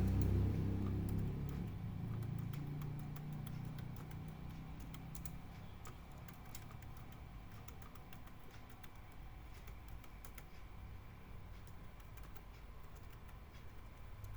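Asus X441B laptop keyboard keys pressed one after another in quick, irregular clicks as every key of the newly fitted keyboard is tested. A low rumble fades away over the first few seconds.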